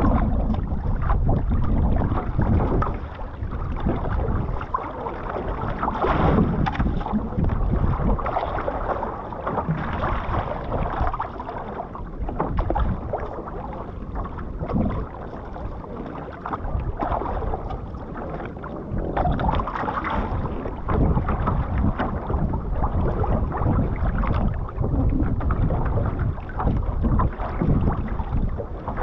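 Water rushing and splashing along a one-person outrigger canoe's hull as it is paddled through choppy sea, with paddle strokes dipping into the water. There is a steady rushing that swells and fades every few seconds, with wind buffeting the microphone.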